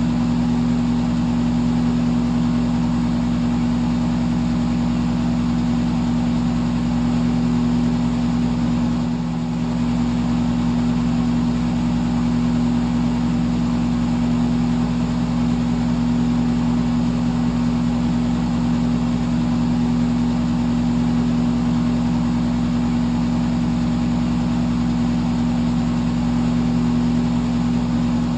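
Electric fan running steadily: a low motor hum of several steady tones under an even rush of air, dipping slightly for a moment about nine seconds in.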